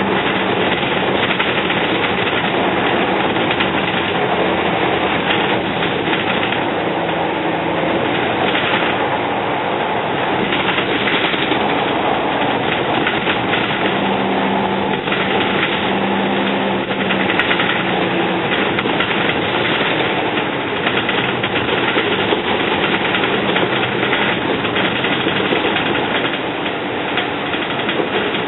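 Volvo Olympian double-decker bus with a Cummins L10 diesel engine and ZF automatic gearbox, heard from inside the cabin while under way: steady engine and road noise with body rattle, and a low hum that comes and goes now and then.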